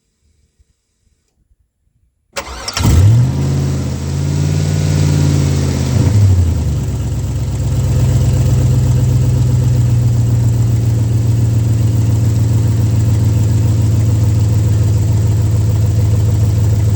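1965 Chevy C10 pickup's engine starting about two seconds in: it catches almost at once, revs up and falls back, then settles into a steady idle.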